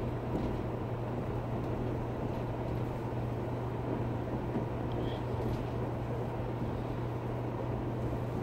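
Steady rumble inside the passenger cabin of a KTX-Eum electric multiple unit train in motion, with a constant low hum beneath it.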